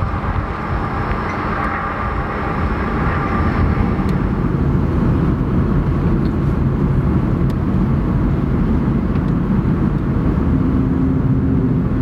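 Steady low rumble of a car driving, heard from inside the cabin: engine and tyre noise, growing louder a few seconds in.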